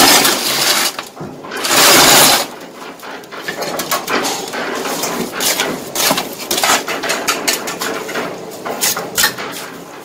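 Bricklaying: a steel trowel scraping mortar and tapping hollow clay bricks into place. Two loud rasping scrapes come at the start and about two seconds in, then many light taps and clicks.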